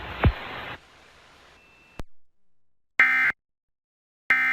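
Emergency Alert System end-of-message data bursts: two short, identical bursts of buzzy digital tones about a second and a quarter apart, signalling the end of the alert. Before them, a steady hiss cuts off under a second in, with a quick falling chirp just before it ends, then a single click.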